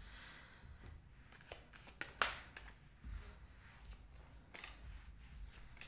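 Tarot cards being dealt onto a wooden table: a few faint slaps and slides of card stock, the sharpest snap about two seconds in.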